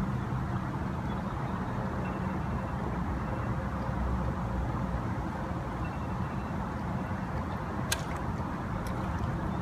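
Steady low rumble of distant engines, with a single sharp click about eight seconds in.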